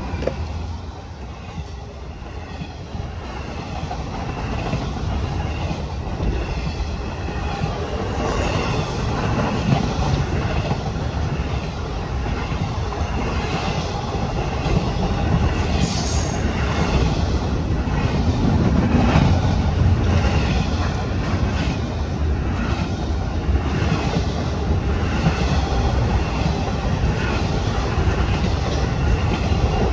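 Double-stack intermodal freight train rolling past at close range: a steady rumble of steel wheels on the rails that slowly grows louder, with scattered clicks from the wheels and couplings and a couple of brief high wheel squeals.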